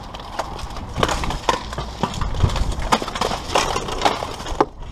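Steel plate armor and weapons of armored fighters clanking: a dense run of sharp, irregular metallic clanks and knocks as they move and strike.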